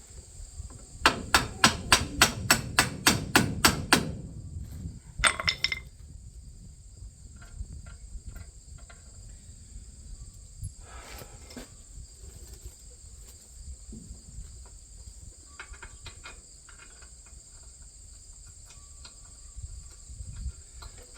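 A quick run of about ten hammer taps on metal, about three a second, tapping a corn-head stalk roll on tighter onto its shaft. Then come a couple more taps and faint clicks of hand work, over steady chirring of crickets.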